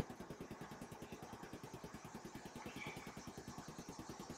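Faint, steady low mechanical throb, pulsing rapidly and evenly, like a small motor running in the background.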